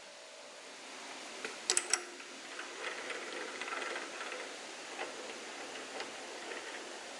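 Metal clinks and ticks from handling a four-jaw wood lathe chuck, its T-handle chuck key and a small metal drive center. A quick cluster of sharp ringing clicks comes about two seconds in, then lighter scraping and single ticks.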